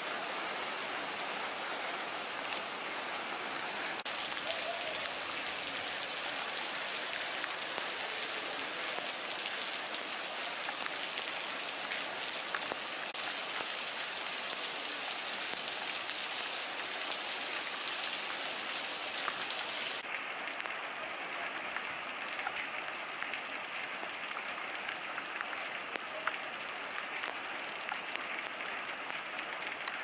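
Heavy rain falling onto a flooded street: a steady hiss with scattered sharp ticks of drops.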